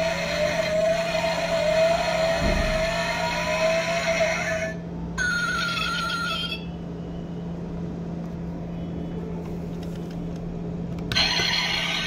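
Recorded engine sound from a diecast Lexus SUV model's built-in sound module, played through its tiny speaker: a wavering engine note that stops about five seconds in. A brief higher electronic tone follows, then a quieter stretch with a low steady hum, until the engine sound starts again near the end.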